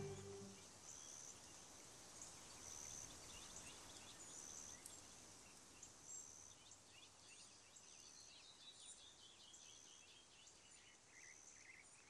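Faint natural ambience: a thin, high chirp repeating every second or so, and from about eight seconds in a bird's series of short notes falling in pitch.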